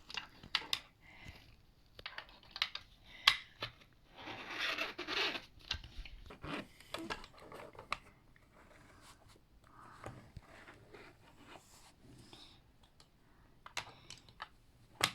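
Clicks, taps and scraping from hands working a plastic toy screen-printing kit, with a longer stretch of scraping about four seconds in.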